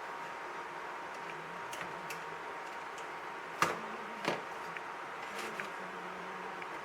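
Two sharp clicks about two thirds of a second apart, over a steady low hiss with a faint steady tone.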